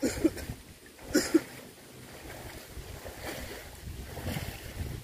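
Wind on the microphone and small waves lapping at a lake shore, a steady rushing noise. Two brief, louder sounds come at the start and about a second in.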